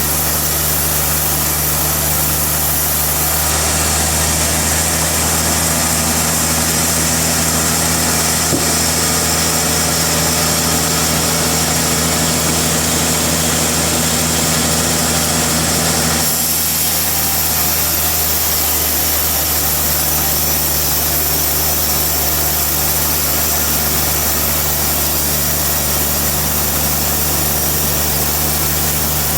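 Sawmill engine running steadily at a constant speed. Its sound changes slightly about three seconds in and again about sixteen seconds in.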